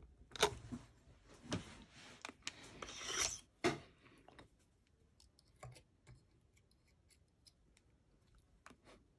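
A thin steel pick scraping and rubbing inside a drilled Ultion euro lock cylinder for the first few seconds, then only faint, sparse metallic clicks as it probes the remaining pin chambers through the drilled hole.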